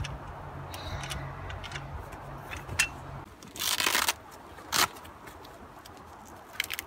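A low steady hum, which stops about three seconds in; then two short bursts of rustling and scraping as a canvas spare-tyre cover is handled, with a couple of faint clicks near the end.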